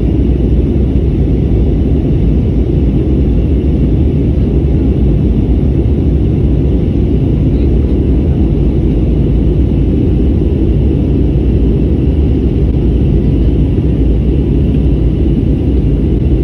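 Jet airliner cabin noise in flight: the steady low rumble of engines and airflow heard inside the cabin.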